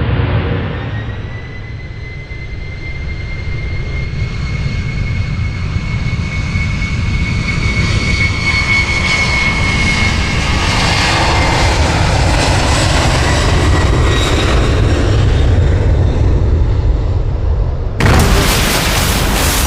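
Sound-effect recreation of a jet airliner's engines running with a high whine, growing louder as the plane dives, then a sudden loud crash of noise near the end.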